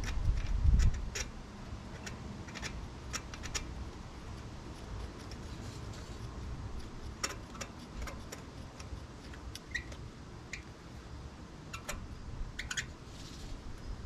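Irregular light clicks and ticks of hands working plastic connectors and parts at the ignition coils on top of the engine, with a low rumble in the first second.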